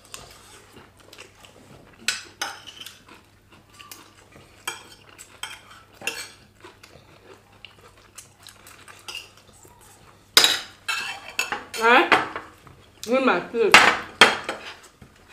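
Metal forks clinking and scraping on ceramic plates of fried rice, scattered light clicks. From about ten seconds in, several loud bursts of voice without words.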